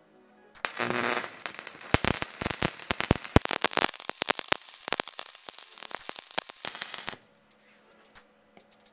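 Stick (arc) welding with a 4 mm electrode on a MIG-200MDP multi-process welder set to about half output. The arc strikes with a brief buzz just under a second in, then crackles and spits irregularly for about five seconds and cuts off suddenly.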